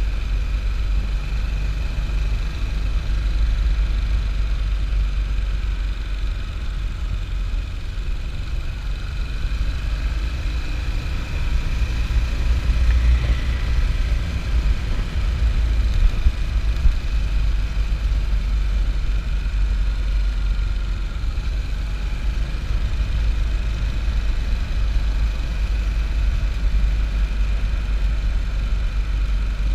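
Motorcycle engine running at road speed, with a heavy steady rumble of wind and road noise on the body-mounted microphone. It gets a little louder about halfway through, then settles back.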